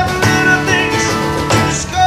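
Live music from a small band: acoustic guitar playing, with drums, and steady notes changing throughout.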